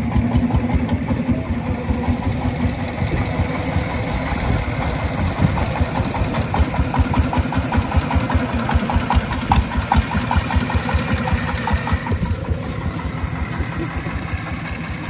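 Jiang Dong diesel engine on a homemade farm tractor running steadily with a fast, even thumping beat. A lighter rapid clicking rides on it through the middle, and the engine eases slightly near the end.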